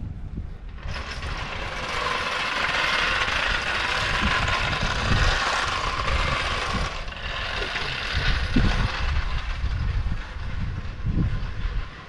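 Wind buffeting the microphone in gusts, under a steady, hissing machine noise that starts suddenly about a second in, drops down after about seven seconds and stops near the end.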